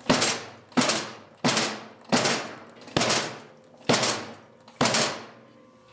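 Walk-behind lawnmower knocking seven times, roughly every 0.7 s, as its handles are pressed down and let go to test the newly welded handle supports. Each knock rings out briefly before the next.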